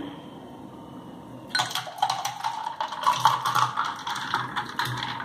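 Falsa juice poured from a jug into a stemmed glass, splashing steadily as the glass fills; the pour starts about a second and a half in.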